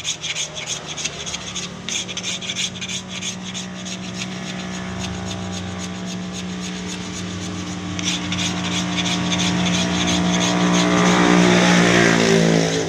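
A blade shaving and scraping along a sapodilla-wood knife sheath in rapid strokes, easing off in the middle and picking up again. Under it a steady engine drone from a vehicle grows louder, loudest near the end.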